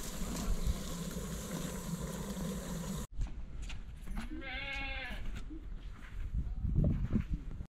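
Okra frying in a pot over a wood fire, a steady hiss, which cuts off suddenly; then a single bleat from farm livestock, about a second long.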